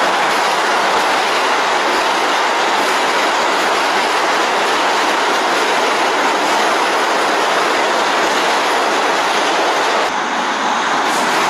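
New York City subway train running along the rails: a loud, steady rush of wheel and rail noise with occasional faint clicks, easing slightly for a moment about ten seconds in.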